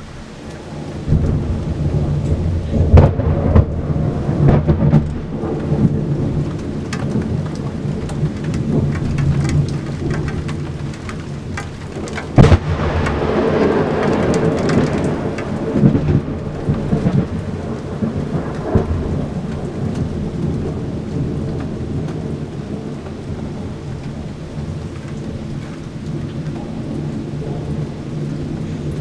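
Thunder rumbling over rain. The rumble swells about a second in, with a sharp crack near the middle, then slowly dies away.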